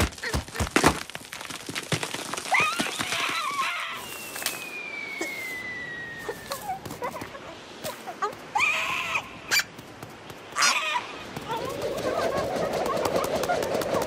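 Cartoon sound effects: a quick run of sharp clicks, then bursts of squawking bird cries, a whistle sliding down in pitch for about two seconds, and a steady rushing noise building near the end.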